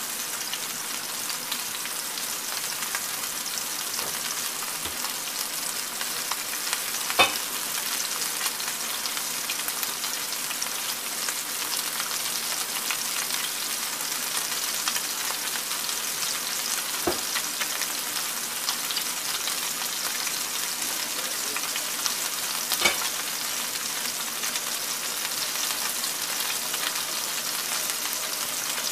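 Meatballs frying in oil in a cast iron skillet, a steady hissing sizzle. Three sharp pops break through it, the loudest about seven seconds in.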